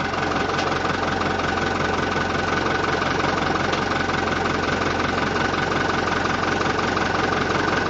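Fiat 640 tractor's four-cylinder diesel engine idling steadily while its hydraulics work the front loader at idle speed.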